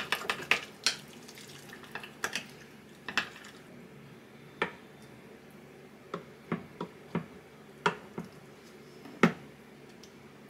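A series of sharp, irregular clicks and light knocks of small hard objects being handled: a quick cluster at the start, then single ones every second or so.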